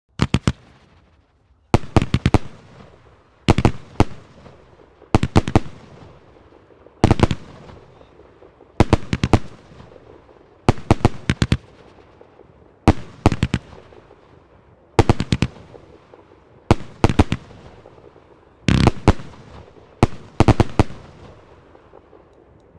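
36-shot firework barrage cake with 30 mm tubes firing: clusters of about three sharp bangs roughly every two seconds, each followed by a fading echo, for about twelve volleys.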